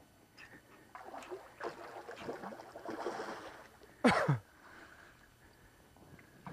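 Water splashing and sloshing at the side of the boat as a hooked redfish is brought in. About four seconds in, a short, loud sound sweeps steeply down in pitch.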